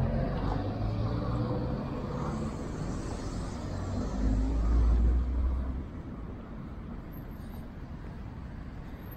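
Road traffic passing: a vehicle engine hums by, loudest about four to six seconds in, then fades to a softer steady background noise.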